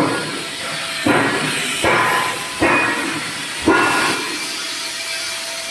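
Welding arc hissing and crackling steadily on a pipe joint, swelling in sudden surges about once a second.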